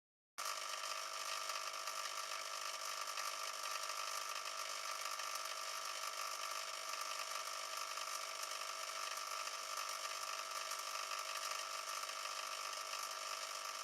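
Eheim Classic 2213 aquarium canister filter running with an abnormal noise: a steady mechanical whirr with a few high held tones. It starts abruptly about half a second in.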